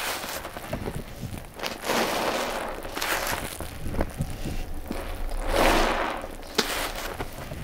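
Sponges soaked with a wet powder mixture squeezed by hand, about three separate squeezes of around a second each, with a couple of sharp clicks in between.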